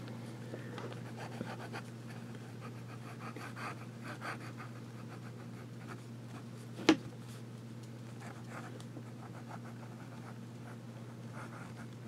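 Medium-nibbed fountain pen writing on paper, its nib scratching faintly as words are written, over a steady low hum. One sharp click about seven seconds in.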